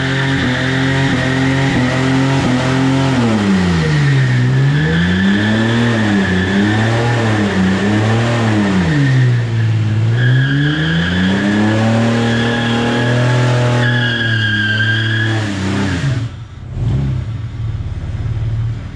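Holden VN Commodore wagon's 3.8-litre Buick V6 doing a burnout on a line lock, the rear tyres spinning and squealing. The engine is held at high revs, drops about four seconds in, and is blipped up and down several times. It is then held high again with the squeal returning, and backs off to a low idle near the end.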